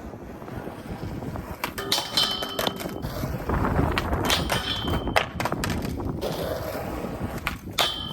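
Skateboard clacking and landing three times, each hit followed by a brief metallic ring. A low rumbling noise fills the gaps between the hits.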